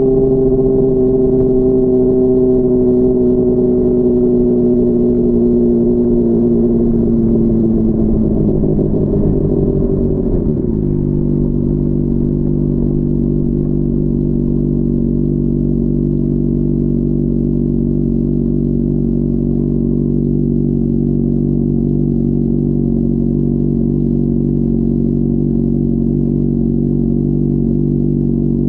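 Honda CBR600RR inline-four engine on the move. Its note falls gradually as the bike slows, drops suddenly about ten seconds in, then holds a steady pitch.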